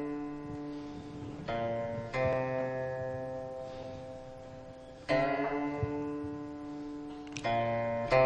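Slow instrumental music on a plucked string instrument: notes and chords struck every second or three and left to ring out.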